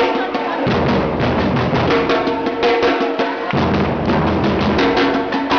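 A supporters' drum group plays a fast, dense beat while a crowd of fans sings along. The deep bass drum drops out twice and comes back.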